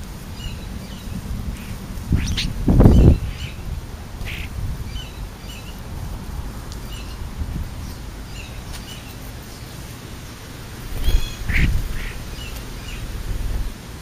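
A flock of European starlings and house sparrows at a food pile: repeated short, high chirps, with two loud thumps close to the microphone, one about three seconds in and one about two-thirds of the way through, over a low steady rumble.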